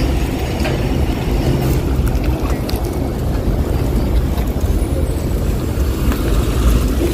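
SUV engine running at low speed as the vehicle reverses past up close, a steady low rumble.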